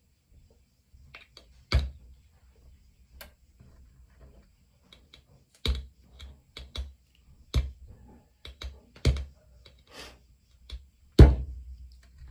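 A plastic vitamin bottle being handled and picked at while someone tries to open it: scattered small clicks and scrapes, with several louder knocks, the loudest near the end.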